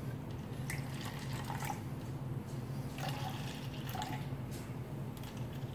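Watermelon punch poured from a glass bottle into plastic cups: a faint trickle with a few small splashes and drips.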